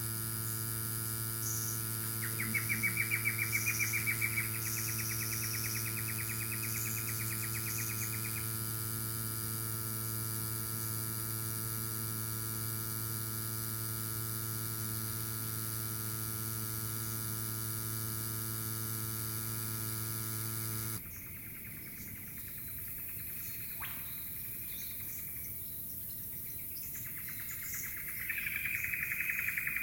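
Cycplus AS2 Pro Max mini electric tyre inflator running on a motorcycle's rear tyre valve: a steady hum at an even pitch that cuts off suddenly about two-thirds of the way in. Birds chirp after it stops, with a rapid chirping call near the end.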